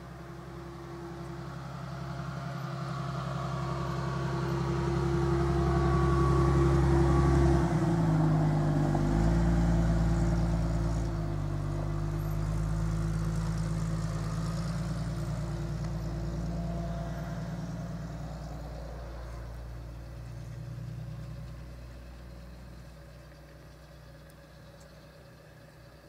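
A motor vehicle's engine running as it approaches and passes, growing louder for several seconds, changing pitch about eight seconds in, then slowly fading away.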